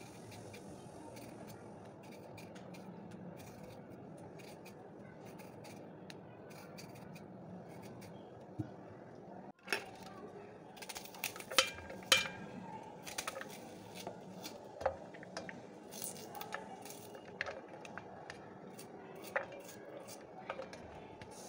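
A kitchen knife cutting through an onion held in the hand, a run of sharp clicks and crisp taps of the blade that starts about halfway through after a steady background hum.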